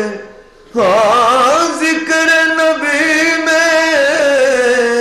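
A man reciting a naat: unaccompanied solo devotional singing into a microphone. After a short pause for breath at the start, he sings one long melismatic phrase, with wavering ornaments about a second in, held notes, and a falling close near the end.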